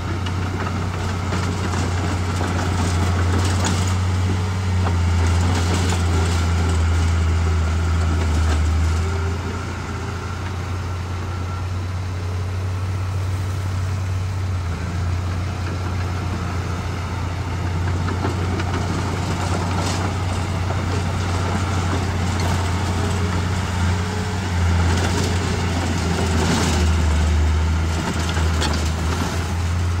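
Heavy diesel engine of earthmoving machinery running steadily with a deep, constant hum that swells and eases now and then, with occasional short clatters.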